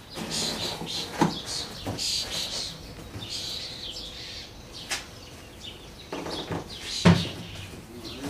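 A few sharp knocks and clunks of a motorcycle seat and tools being handled, the loudest about seven seconds in. Birds chirp in the background.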